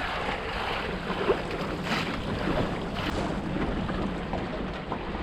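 Wind buffeting the microphone and water splashing and slapping against the hull of a Wanderer sailing dinghy under way, with scattered small knocks and a couple of brief louder splashes.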